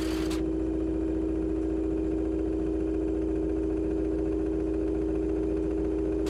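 A steady droning hum at one constant pitch, with a deeper hum beneath it; a hiss above it drops away about half a second in.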